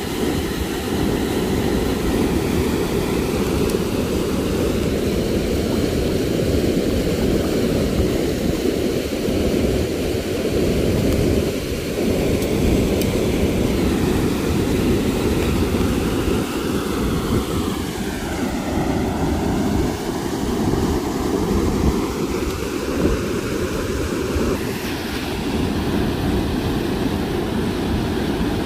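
Loud, steady rushing of flowing river water.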